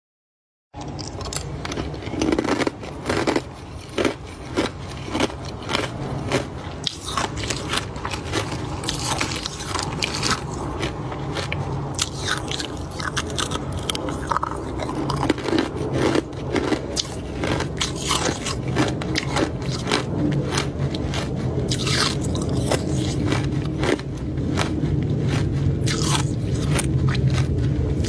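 Hard ice cubes being bitten and chewed close to the microphone: irregular sharp crunches, a few every second, over a steady low hum.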